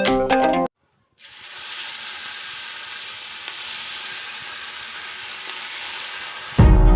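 Chicken leg pieces frying in hot oil, a steady sizzle that starts about a second in after a short break in the background music and lasts until the music returns near the end.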